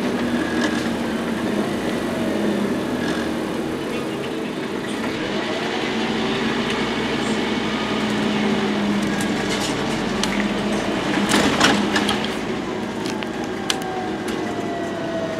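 Inside a moving Scania N230UD double-decker bus: the engine runs under way with a steady hum, under road noise and sharp rattles from the body and windows. Over the last few seconds a whine falls steadily in pitch.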